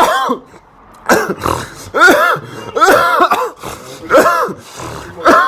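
A person coughing and clearing the throat loudly and repeatedly, harsh voiced hacks coming about once a second.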